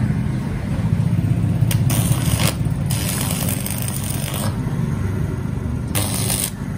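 Stick (arc) welding on a steel bar with a hand-held electrode: the arc crackles and sizzles in several spells, the longest from about three to four and a half seconds in, another near the end. A steady low rumble runs underneath.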